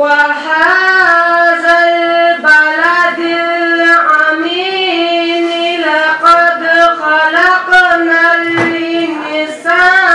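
A single voice reciting the Quran in melodic tajweed style, holding long, drawn-out ornamented notes with short breaks for breath every few seconds.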